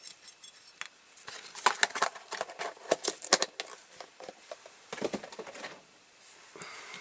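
Irregular small clicks and taps of a diecast toy car's small parts being handled and fitted by hand, with a short scraping rub about five seconds in.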